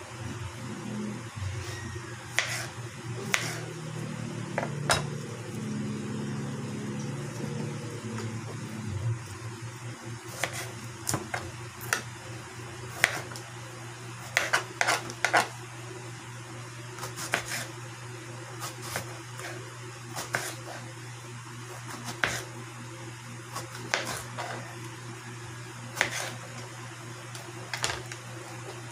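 Kitchen knife chopping vegetables on a plastic cutting board: irregular sharp taps about a second apart, a quick run of them about halfway through, over a steady low hum.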